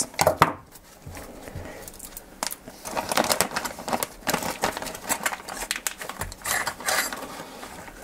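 Anti-static shielding bag crinkling and crackling as it is handled and pulled open, with irregular sharp crackles and light clicks as the adapter card is taken out.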